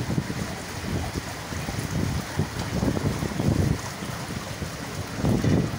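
Floodwater rushing and splashing as a train runs through water covering the track, with wind buffeting the microphone in irregular low gusts.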